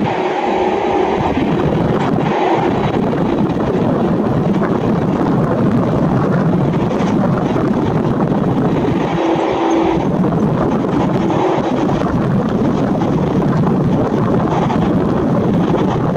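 Boeing 777-300ER's GE90-115B turbofan engines at takeoff thrust as the jet lifts off and climbs away: a loud, steady, deep jet roar.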